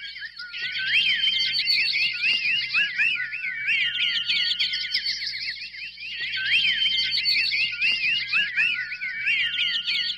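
Many songbirds chirping and singing at once, a dense chorus of quick, overlapping, high whistled notes that thins briefly about halfway through.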